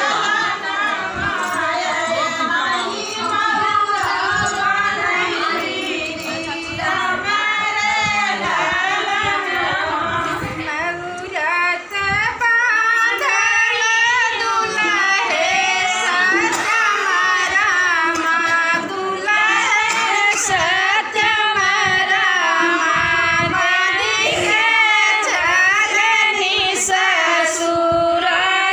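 A group of women singing a North Indian wedding folk song (vivah geet) together in a wavering, ornamented melody, with a dholak drum beating along underneath.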